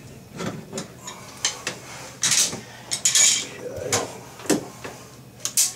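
Pliers and metal drain parts clinking and knocking in a bathroom sink during work on the pop-up drain: a string of sharp clicks with two short scraping hisses about two and three seconds in.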